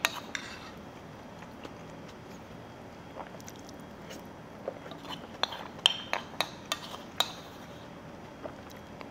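Eating utensils clinking and tapping against a dish as food is scooped up, with a few scattered clicks and then a quick run of clinks about five to seven seconds in.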